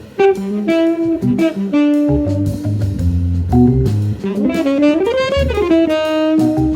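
Jazz band playing, with guitar and saxophone over bass and drums. The melody line swoops up and back down in pitch a little past the middle.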